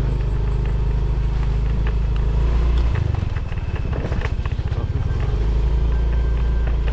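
Motorcycle engine running under way with a steady low drone; about three seconds in the note drops and goes uneven for a couple of seconds, then steadies again.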